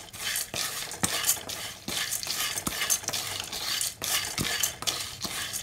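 Wooden spatula stirring roasted split chickpeas in a black wok-style pan: the dry grains rattle and scrape against the metal, with a stroke about twice a second and a few sharp clicks.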